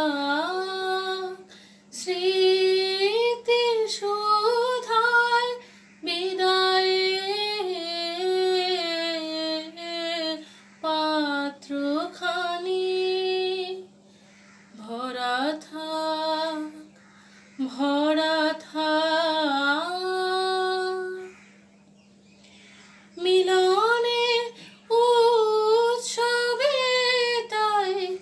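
A young woman singing solo without accompaniment, in long held phrases with short breaks for breath and a longer pause about three quarters of the way through.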